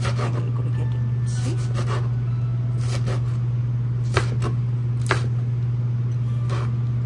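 Kitchen knife slicing a green chili on a plastic cutting board: about eight separate sharp clicks as the blade hits the board, irregularly spaced, over a steady low hum.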